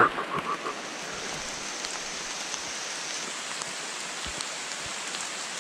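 Steady rain falling, an even hiss with a few light ticks of drops. In the first half-second there is a short run of high-pitched chirps or whines.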